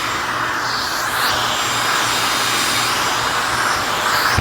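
Shop-Vac 2030100 1.5-gallon wet/dry vacuum running steadily, its suction rushing with a constant low motor hum underneath, the airflow shifting a little now and then as the nozzle is worked over a car floor mat.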